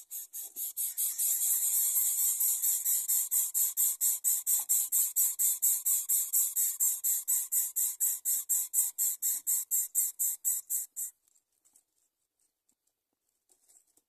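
Rapid, high-pitched rhythmic chirping, about four to five pulses a second, which stops abruptly about eleven seconds in.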